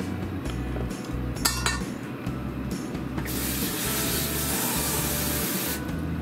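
Tap water running into a plastic tray for about two and a half seconds, starting and stopping abruptly, to cool just-blanched komatsuna. A short clatter comes about a second and a half in.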